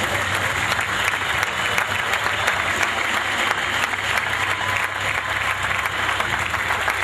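Crowd applauding: dense, steady clapping with no break.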